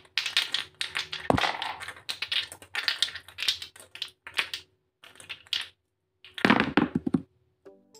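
Small plastic poster-paint jars and their screw caps clacking and rattling against each other as they are jumbled in cupped hands, in bursts of rapid clicks. A louder clatter comes near the end as they are set down on paper.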